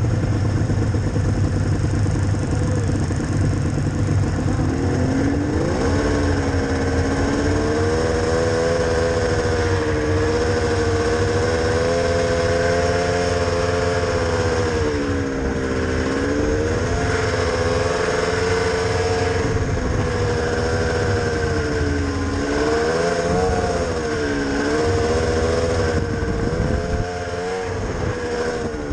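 Snowmobile engine heard from the rider's seat: a low rumble for the first few seconds, then revving up and running at speed, its pitch dipping and climbing again several times as the throttle is eased and opened.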